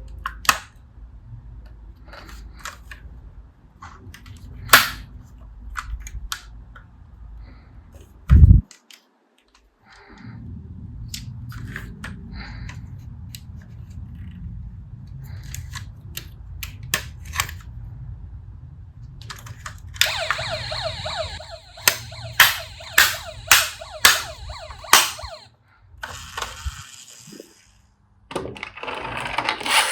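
Toy cars rolling with a low rumble and clattering, with many sharp clicks and knocks and one heavy knock about eight seconds in. Near the end come several seconds of rapid sharp clicks over a high sweeping sound.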